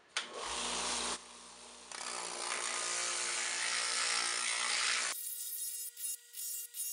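Flexible-shaft rotary tool running a cushioned drum sander against the inside of a pine bowl, a steady motor hum under a rasping sanding noise that drops away briefly about a second in. About five seconds in it cuts off abruptly and music begins.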